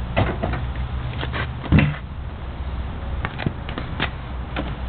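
Engine oil dripping from a scooter's open drain hole into a plastic drain pan: a few irregular small plinks and knocks, with one louder thump a little under two seconds in.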